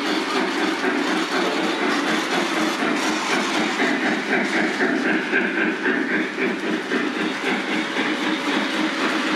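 Lionel O-gauge model trains running on three-rail track: a steady rumble and clatter of wheels and motors as a locomotive and freight cars pass close by. A higher whine joins in for about two seconds near the middle.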